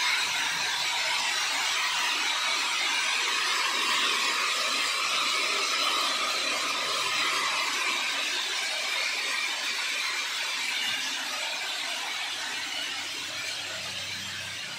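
Soybeans sliding and rolling down the sheet-steel flights of a spiral seed grader as it sorts them: a steady hissing rattle of seed on metal, easing off a little over the last few seconds.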